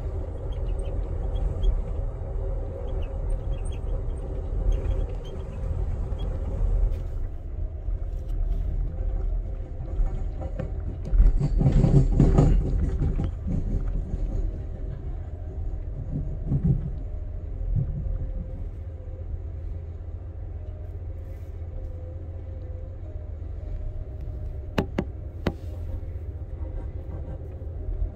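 Amtrak Superliner passenger train running along the track, a steady low rumble. It grows louder for about two seconds around eleven seconds in, and two sharp clicks come near the end.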